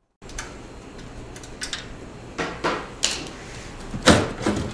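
Gloved hands handling a metal desktop computer case on a desk: a string of light clicks and knocks, the loudest about four seconds in.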